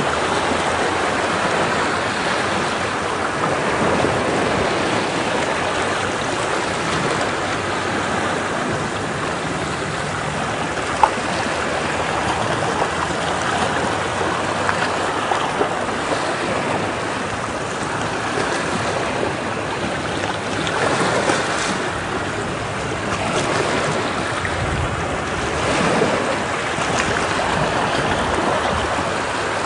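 Ocean waves washing against rocks: a continuous surging wash that swells and ebbs slowly, with one brief sharp tick about eleven seconds in.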